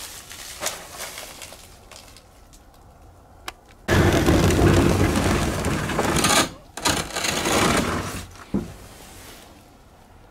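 Old wooden shed door dragged open along its track in two loud grinding pushes, the first about three seconds long and the second about a second and a half, with a knock just after.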